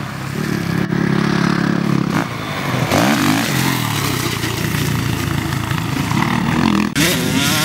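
Suzuki RM-Z 450 four-stroke motocross bike engine revving under throttle, its pitch sliding down and back up about three seconds in. The engine sound breaks off abruptly and changes twice.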